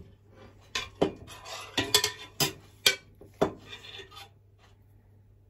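Gloved hand rubbing and kneading glutinous rice flour in a stainless steel bowl, a gritty rustle, with about half a dozen sharp clinks of a metal ladle on the steel pot and bowl as coconut milk and palm sugar syrup is added a little at a time. The sounds die away for the last second or so.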